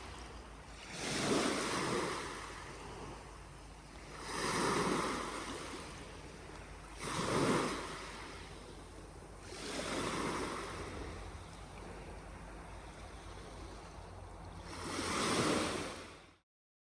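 Waves washing in on a saltwater beach, five of them a few seconds apart, each swelling and fading over a steady low rumble. The sound cuts off abruptly near the end.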